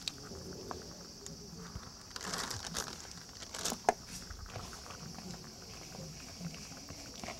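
Hands mixing dry, light dango bait powder into damp bait in a plastic bowl: faint soft rustling and crumbling with a few light ticks, over a steady high hiss.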